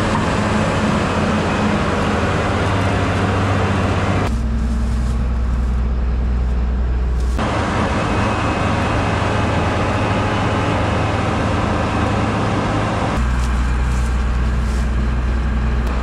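Diesel engine of a bogged New Holland TR89 combine harvester running steadily, its tone changing abruptly about four, seven and thirteen seconds in.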